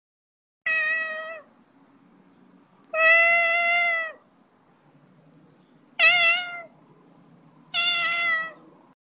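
Domestic cat meowing four times, each call lasting roughly a second, the second the longest and the third with a wavering pitch.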